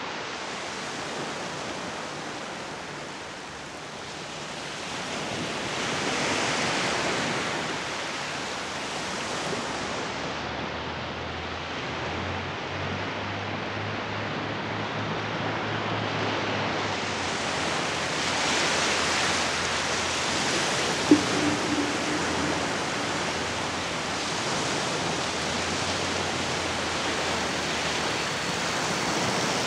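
Waves breaking on a sand beach: a continuous rush of surf that swells twice, as breakers come in, with a single short click about two-thirds of the way through.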